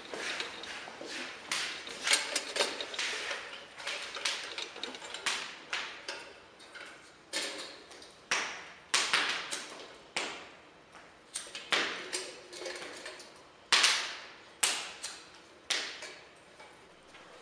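A run of irregular sharp clicks and knocks, roughly one a second, each dying away quickly with a short ringing tail.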